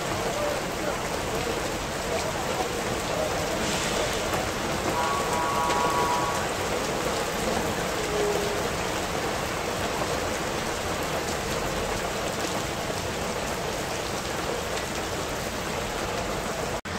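Steady rain falling onto a wet, puddled street: an even, dense hiss of drops splashing on the pavement and standing water.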